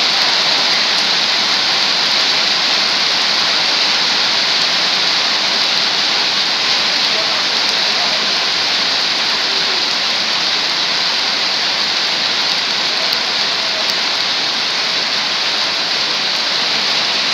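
Heavy rain falling on a wet paved road: a steady, dense hiss.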